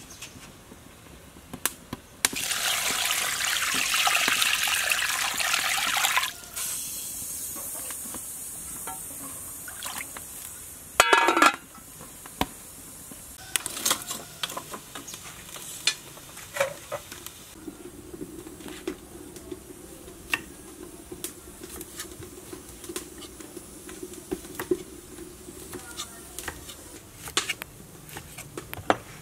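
Water poured into a metal pot of raw chicken pieces for about four seconds, with a softer trickle after it. A loud clatter comes about eleven seconds in. Sparse sharp crackles from a wood fire under the pot follow.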